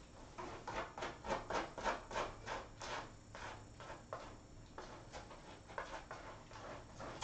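Kitten digging in a litter box, its paws raking the litter in quick rasping scratches, about four a second at first, then slower and more spaced out.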